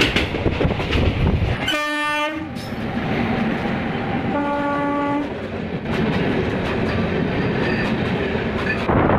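Train running with a steady rail rumble and wheel clatter, and two short blasts of a locomotive horn, the first about two seconds in and the second near the middle.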